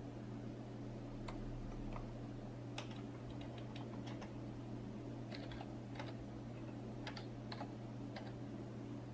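Typing on a computer keyboard: irregular bursts of key clicks over a steady low hum.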